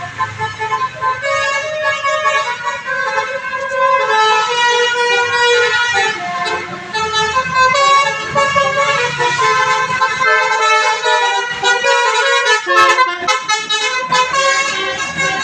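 Bus telolet horn, a Basuri multi-tone air horn, playing a quick melody of changing notes, with a run of short, choppy notes near the end.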